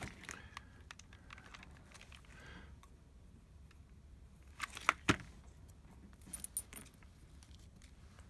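Faint rustling and light clicking of cut cardboard and paper scraps being handled and moved on a worktable, with a couple of sharper clicks about five seconds in.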